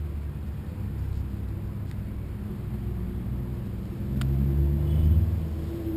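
Low rumble of wind buffeting the microphone, under the steady hum of an engine passing by that swells about four seconds in, with a single sharp click just before.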